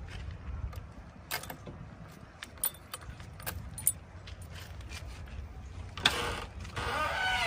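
Heavy diesel machinery running with a low rumble, under scattered metallic clanks and rattles. About six seconds in, a louder whine starts and wavers up and down in pitch.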